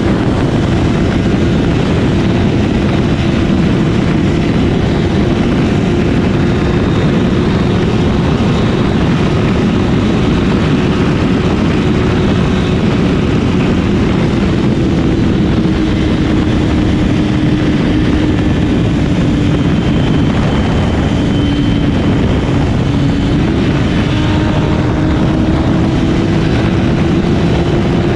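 Honda CBR1000RR's inline-four engine pulling at a steady cruise, its note sagging a little in the middle and climbing back near the end, under heavy wind rush at speed.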